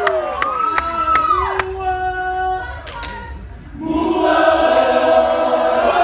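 Polynesian performance group's voices: long held calls with a few sharp smacks, a short lull about three seconds in, then the whole group comes in together singing in chorus with held notes.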